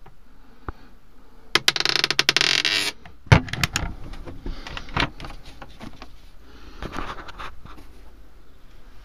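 Wooden cupboard doors and their fittings in a motorhome being handled: a rattling scrape of fast clicks lasting just over a second, then a sharp knock and a few light clicks, with faint handling rustles after.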